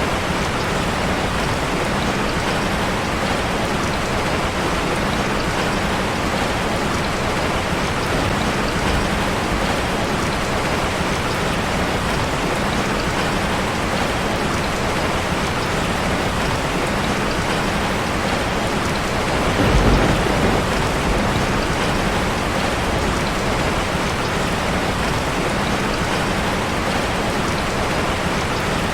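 Steady rain falling on a street. About twenty seconds in, a brief low rumble swells and fades under the rain.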